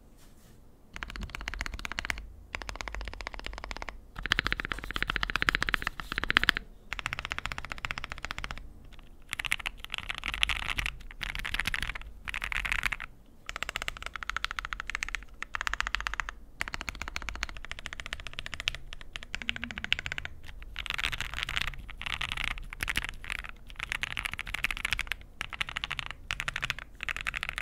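Fast typing on a mechanical keyboard fitted with aftermarket keycaps, a dense run of key clacks in several short stretches broken by brief pauses.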